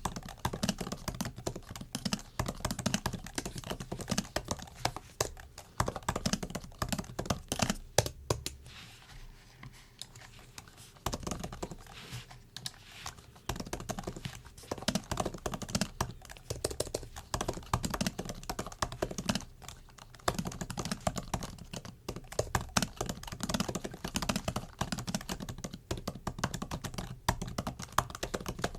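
Typing on a MacBook's built-in laptop keyboard: a rapid, uneven run of soft key clicks, thinning out to a few keystrokes for a couple of seconds about a third of the way in before picking up again.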